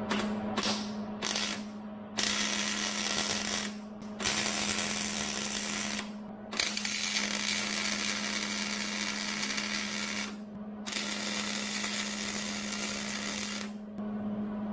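Wire-feed (MIG) welder arc crackling and hissing while welding a nut onto a stuck camshaft sprocket bolt. Three short tacks come first, then four longer runs of a few seconds each with brief pauses. A steady low hum sits underneath.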